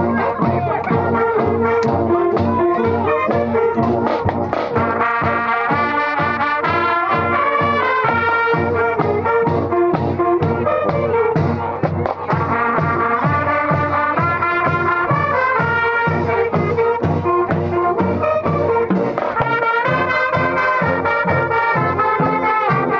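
High school marching band playing: loud brass, including sousaphones, over a steady drum beat.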